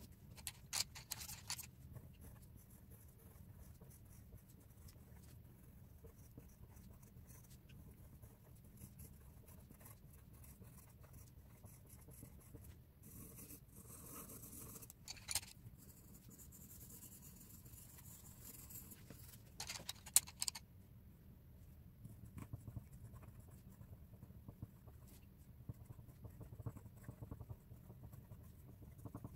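Coloured pencil scratching faintly on paper as a drawing is shaded in, with a few brief louder scrapes about a second in, near the middle and about two-thirds through.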